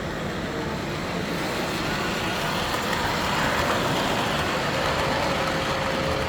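Model train running on layout track, a steady rolling rumble that swells about three seconds in as it passes close. A faint steady tone comes in near the end.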